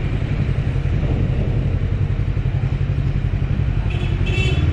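Bristol Veloce 500 motorcycle engine running steadily under way, heard from the rider's seat. A brief high-pitched tone sounds near the end.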